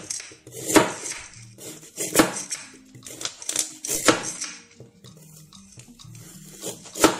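Kitchen knife cutting raw carrots on a cutting board: sharp knocks as the blade goes through and strikes the board, a second or two apart, with lighter taps between. The last knock, near the end, is the loudest.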